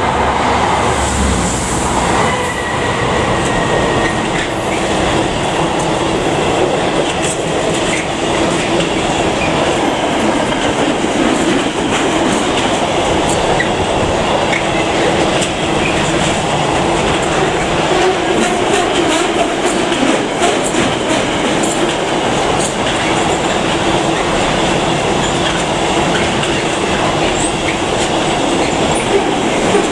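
A diesel-hauled intermodal container freight train passing at speed. The locomotive's engine goes by in the first couple of seconds, then a long run of loaded container wagons rolls past with a steady rumble and the clickety-clack of wheels over rail joints, in clusters of sharp clicks.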